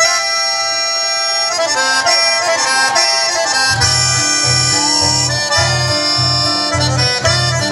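Accordion playing a chamamé with held chords. About four seconds in, a steady bass pulse comes in, about two notes a second.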